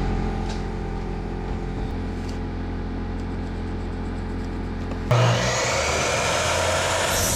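Electric saw cutting 2x4 lumber to length: a steady motor hum, then about five seconds in a louder, rougher sound as the blade goes through the wood.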